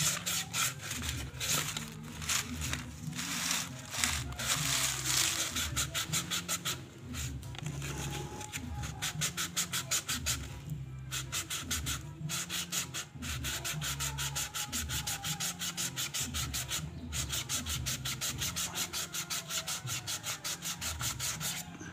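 Fine sandpaper wetted with diesel rubbed by hand over the rear of an oversize-75 Yamaha Vega ZR piston in quick back-and-forth strokes, several a second, with a couple of short breaks. The piston is being taken down a little so it will fit into the cylinder block.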